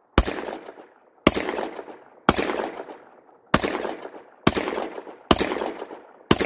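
Seven shots from a Panzer EG200 semi-automatic 12-gauge shotgun, fired roughly one a second, each followed by a fading echo. The gun cycles every round of the 1 1/4 oz, 1330 fps game loads without a stoppage.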